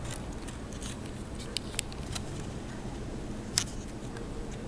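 A few small, sharp clicks and taps from laptop parts being handled during reassembly, over a steady background hiss. The loudest click comes about three and a half seconds in.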